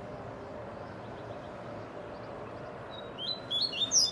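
Double-collared seedeater (coleiro) singing a short burst of quick, high chirping notes near the end, over steady low background noise.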